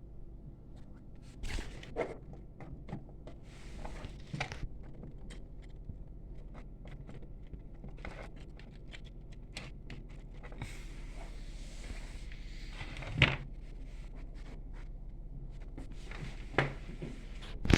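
Scattered light clicks and small handling noises, with a few sharper knocks in the second half, over a steady low hum.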